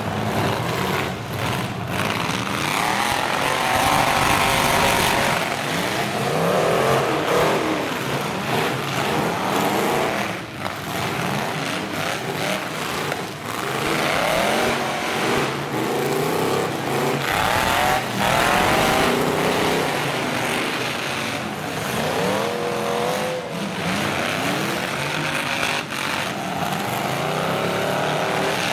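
Several demolition-derby pickup truck engines revving up and down over one another as the trucks push and ram, with a few sharp bangs of metal hitting metal.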